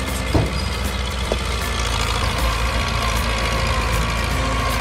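Heavy construction machine's diesel engine running steadily at low revs, with two short knocks, one about half a second in and another just over a second in.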